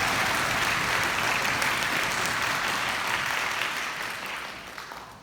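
Audience applauding, a dense even clapping that fades away over the last second or two.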